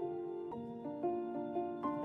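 Background music: a melody of clear held notes that change pitch every few tenths of a second.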